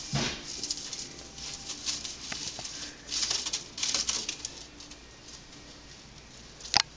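Pet rodent scratching and rustling in the cage's wood-shaving bedding, in short irregular bursts over the first four seconds, then quieter. A sharp click near the end.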